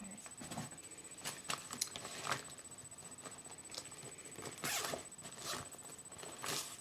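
Faint rustling and scraping of something being handled: a scattering of short scuffs spread over several seconds, over a faint steady high-pitched whine.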